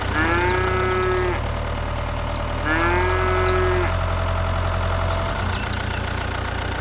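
A steady engine-idling hum, with two long pitched calls over it, each about a second long and rising slightly at the start.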